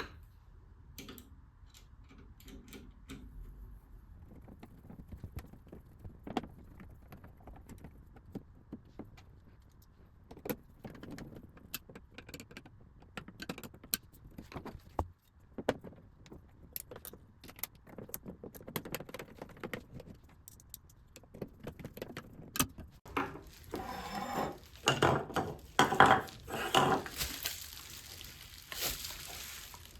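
Small metal screws, a screwdriver and metal mounting plates being handled while fitting a printer's film-roll brackets: scattered light metallic clicks and clinks, growing into a busier, louder clatter a few seconds before the end.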